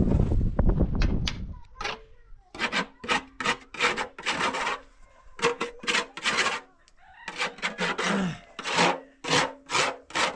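Metal pan being scraped by hand: short rasping strokes, about two a second in runs with brief pauses, each with a faint metallic ring. A loud low rumble comes first, in the opening second or so.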